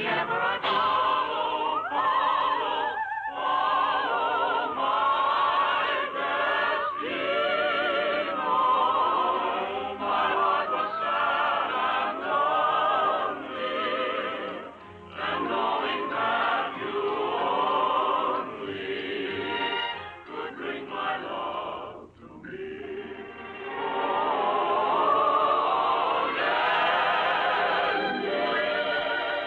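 Film score music with a choir singing wordless, heavily vibratoed lines over orchestral accompaniment, swelling and falling away briefly several times.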